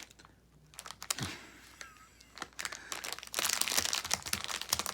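Plastic treat bag crinkling and rustling as a cat works at it to get it open, quiet at first, then a dense crinkling from about halfway.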